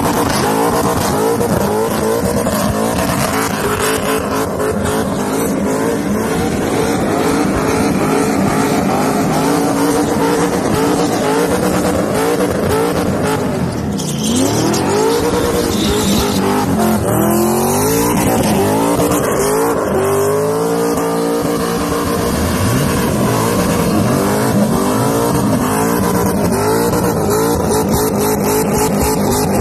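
Car engine held at high revs during a burnout, with the rear tyres spinning and squealing on the pavement. From about halfway the revs rise and fall over and over.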